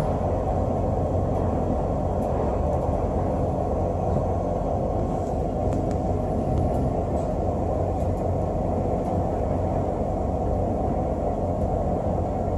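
Steady rumble of a British Rail Class 365 Networker Express electric multiple unit under way, heard inside the carriage: wheels on rail and running gear, deep and even, with a few faint ticks.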